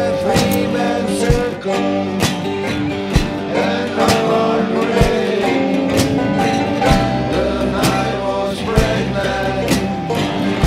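Background music: a song with singing and guitar over a steady beat of about one stroke a second.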